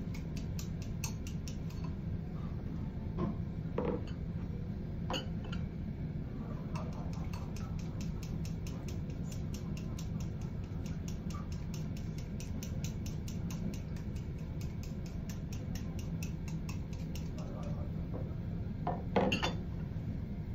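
Chopsticks beating raw egg in a small ceramic bowl: a rapid, even clicking against the bowl, about four taps a second, over a steady low hum. There is one louder clink near the end.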